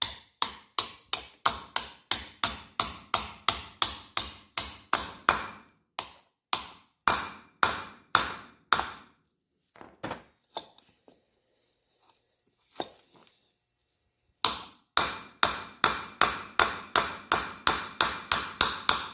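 A hammer tapping a steel hinge pin into a door hinge: quick sharp blows about three a second, then a few slower ones and a pause with light taps, then another quick run of blows near the end.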